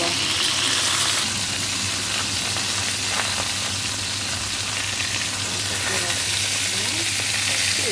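Sausages sizzling steadily in hot oil in a frying pan, under a sheet of paper towel laid over them to stop the fat splattering.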